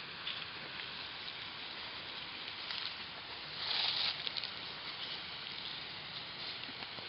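Dogs digging in loose soil: claws scraping the dirt and soil pattering down onto dry fallen leaves, a steady scratchy hiss that grows louder for about a second around four seconds in.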